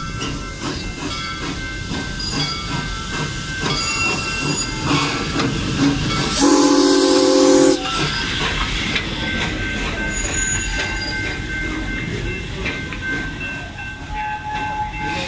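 Amusement-park steam locomotive passing close by with a steady rumble and hiss. About six seconds in it gives one blast of its chime steam whistle, several notes at once, lasting about a second and a half, with a rush of escaping steam around it.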